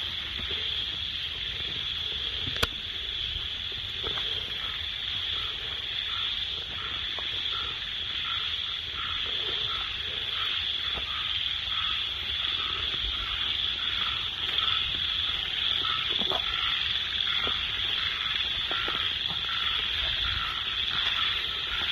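Forest night chorus: a steady high-pitched insect drone, with a frog calling over it in a regular series of short notes, about three every two seconds. A single sharp click sounds a little before three seconds in.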